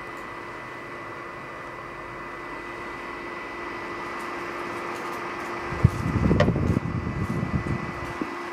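Mini dehumidifier running: a steady fan hum with a faint high steady whine. About six seconds in there is a sharp click, followed by a couple of seconds of low rumbling and knocking.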